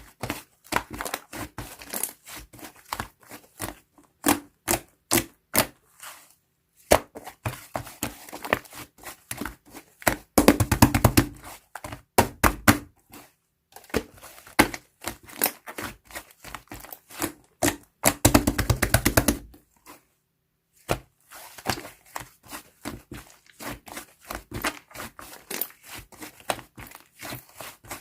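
Slime being pressed, poked and squeezed by hand, giving irregular sticky clicks and pops, with two spells of rapid crackling about ten and eighteen seconds in.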